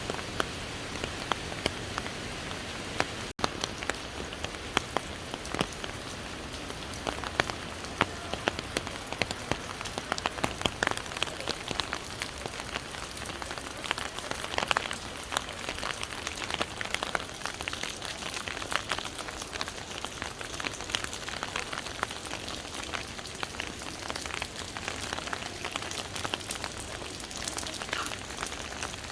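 Water of a large waterfall splashing: a steady rushing hiss dotted with many sharp, irregular splashes and ticks.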